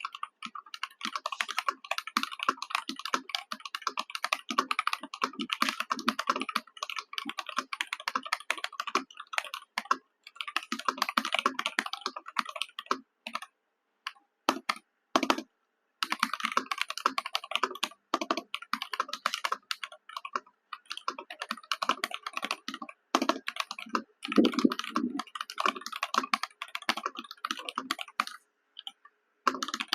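ROG Azoth 75% mechanical keyboard, in stock form, being typed on in quick runs of keystrokes with a few short pauses; the keys make a clacky sound, heavier thocks near the end from what is likely the spacebar or larger keys.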